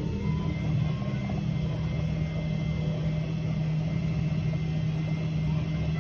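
Front-loading washing machine running its wash cycle: a steady low motor hum as the drum turns through soapy water.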